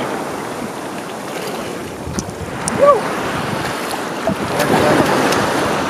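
Surf washing around people wading in the sea, with wind rumbling on the microphone and water splashing. A short whooping shout rises and falls about three seconds in.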